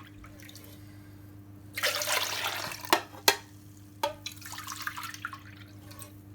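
Orange juice being stirred in a jug: liquid swishing loudly for about a second, then sharp clinks against the container, then quieter swishing. A steady low hum lies underneath.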